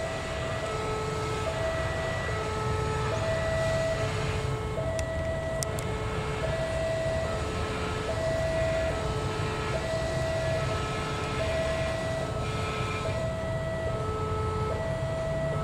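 A two-tone electronic warning alarm switches between a higher and a lower note about every half second. Under it runs the low rumble of an approaching diesel locomotive.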